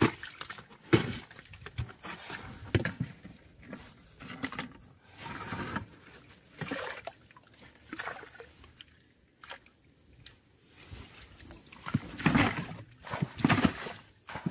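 Hands splashing and scraping in a shallow water-filled rock crevice while digging out bait worms: irregular sloshes and scrapes, a cluster of louder ones near the end.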